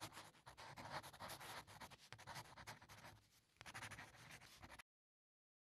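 Faint scratching of a pen writing on paper, in quick irregular strokes, with a short lull about three seconds in and an abrupt stop near the end.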